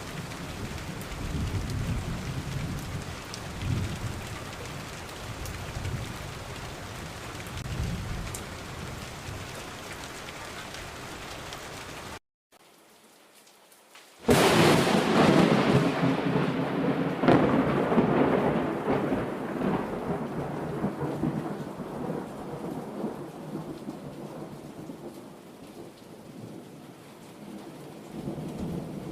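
Thunderstorm: steady rain with low rolls of thunder, then a brief silence about twelve seconds in. About fourteen seconds in, a sudden loud thunderclap whose rumble fades slowly under the rain.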